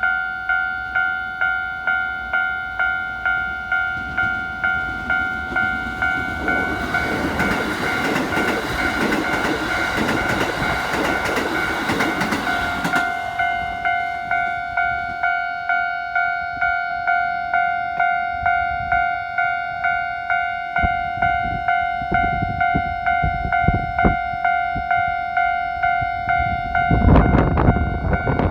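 Japanese level-crossing warning bell on the Keikyu line ringing steadily at about one and a half strikes a second. A Keikyu train rushes past from about six to thirteen seconds in. Late on, another train's wheels clatter over the rail joints, loudest near the end.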